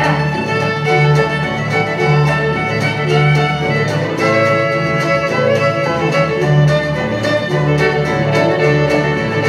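Live bluegrass band playing an instrumental break with no singing: fiddle leading over acoustic guitar, resophonic guitar and upright bass, with a steady pulsing bass beat.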